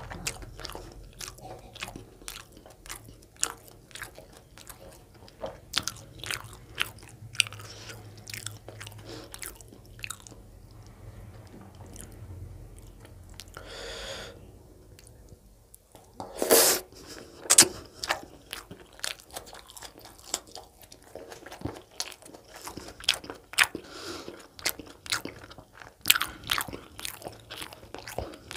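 Close-miked mouth sounds of someone eating chicken gizzard curry with roti by hand: wet chewing, lip smacks and bites in a steady run of sharp clicks. A short rustle about halfway comes as roti is torn by hand, and a louder cluster of bites follows a couple of seconds later.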